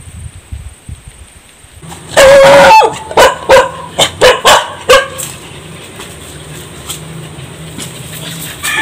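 A dog gives one drawn-out yelp about two seconds in, then barks about five times in quick succession.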